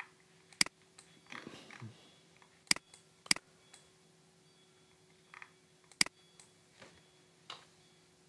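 Sharp single clicks of a computer mouse, irregularly spaced, four of them loud and a few fainter, over a low steady electrical hum.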